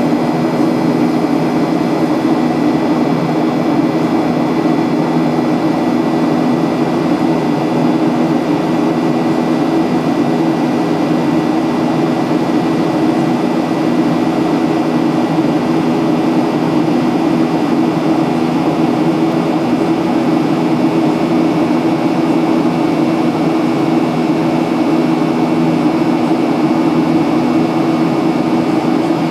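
Steady cabin noise inside a Boeing 737-800 with its CFM56-7B jet engines running: an even rush of air with a constant low hum and a faint high tone, unchanging throughout.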